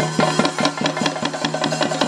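Chenda drums beating a fast, even rhythm of about seven strokes a second over a steady low tone.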